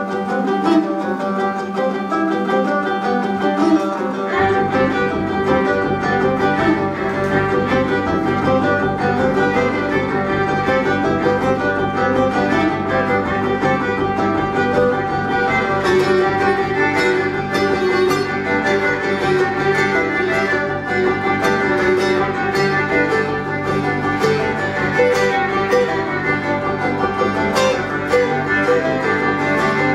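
Acoustic string band playing an instrumental passage: fiddle over strummed acoustic guitar and banjo, with upright bass coming in about four seconds in.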